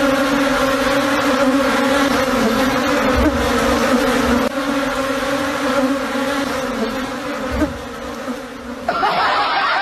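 A dense swarm of wasps buzzing around their papery nest as a loud, steady drone at an even pitch. Near the end, as the nest is grabbed, the buzz turns higher and more jumbled.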